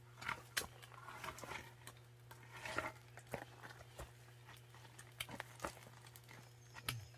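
Footsteps on dry outdoor ground: a string of irregular, light crunching steps as a person moves a few metres away.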